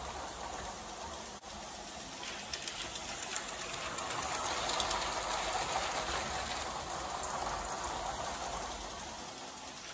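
LEGO #7740 12-volt train running on plastic track: a rattling motor whir with small clicks from the wheels. It grows louder as the train passes close by about four to five seconds in, then fades.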